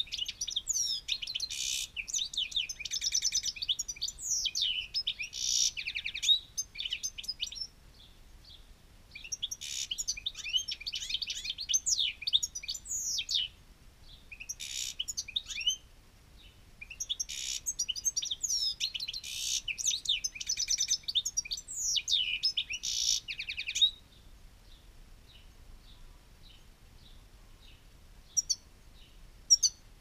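European goldfinch singing: three long bouts of fast, high twittering song with quick gliding notes and trills, separated by short pauses. Over the last few seconds only faint, scattered notes remain.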